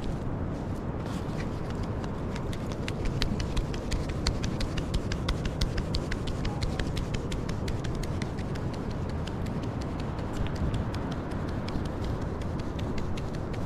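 Flour being sifted through a hand-shaken, wooden-rimmed drum sieve: a quick run of light ticks and taps as the sieve is shaken, over a steady low rumble.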